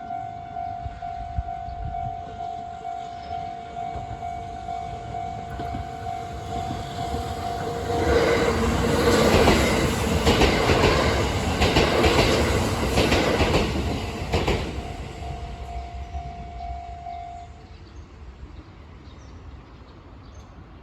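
Japanese level-crossing warning bells ringing in a steady, evenly pulsing ding-ding. A Kintetsu limited express train passes loudly from about eight to fifteen seconds in, its wheels clattering. The bells stop a few seconds after it has gone.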